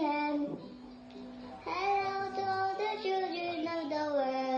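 A young girl singing a children's song, holding long notes between short pauses.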